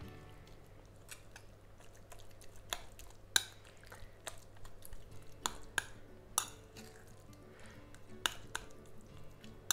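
Metal spoon stirring a soft mix of grated cheese, herbs, egg and yogurt in a ceramic bowl, clinking sharply against the bowl about ten times, irregularly. Faint background music underneath.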